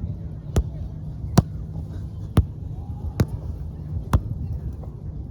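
A ball being hit back and forth with paddles in a rally: about six sharp cracks, roughly one a second, over a low steady rumble of wind and surf.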